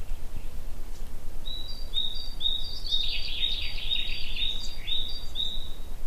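A small songbird singing a quick run of short, high, repeated notes, starting about a second and a half in and stopping near the end, over a steady low rumble.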